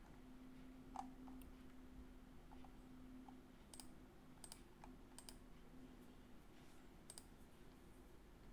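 Near silence with a few faint, sharp clicks at a computer, about five spread across the stretch, over a faint steady hum.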